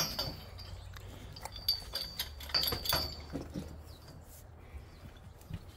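Pipe wrench turning a threaded black iron gas pipe in its fitting: a sharp metal click at the start, then a run of clicks and short high squeaks from the threads over the next few seconds, dying away in the second half.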